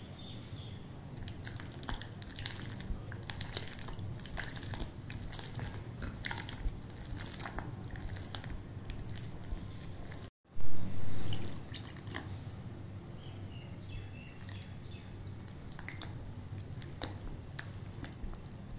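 Silicone spatula stirring and folding wet cake batter in a glass bowl: wet squelching with scattered clicks of the spatula against the glass. About halfway through, the sound cuts out for a moment and a loud low thump follows.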